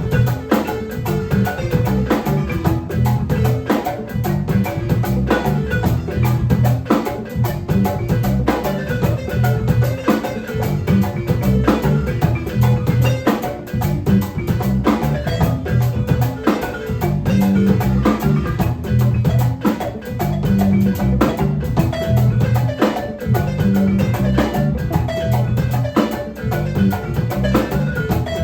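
Ensemble music with mallet percussion such as marimba over drums, playing a steady, busy rhythm of many sharp strikes.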